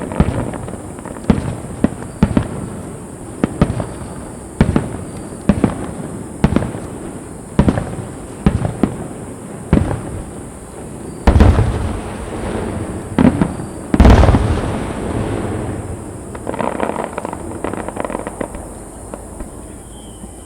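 Aerial fireworks shells bursting overhead in quick succession, a sharp boom about every second, with two louder, longer-echoing booms past the middle. A dense run of small pops follows near the end.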